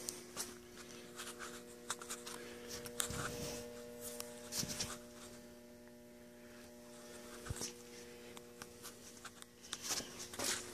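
Faint steady electrical hum, with scattered clicks and rustles of the phone being handled as it moves.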